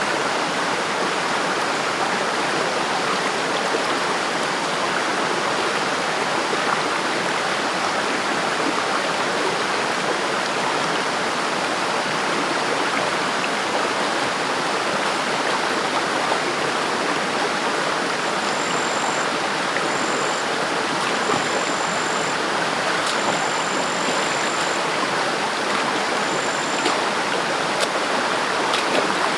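River water flowing in a steady rush. In the second half a thin, high steady tone comes and goes about five times over it.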